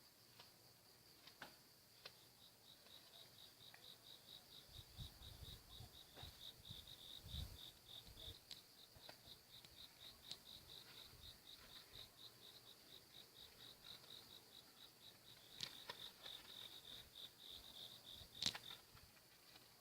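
Crickets chirping faintly: a steady run of short high-pitched pulses, several a second. A few faint clicks and a brief low rumble sit under it, with a sharper click near the end.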